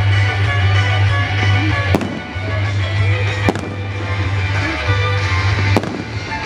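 Fireworks display: sharp bangs of shells bursting, three standing out about two seconds in, about three and a half seconds in and near the end, over music playing throughout.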